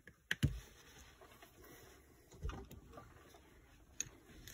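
A few sharp clicks and knocks from the electric motor's brush end plate being handled and set down on a towel. Two come close together about half a second in, with a softer knock about two and a half seconds in.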